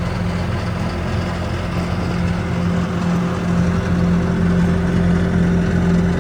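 Diesel engine of a Bobcat S530 skid steer loader running steadily at an even speed.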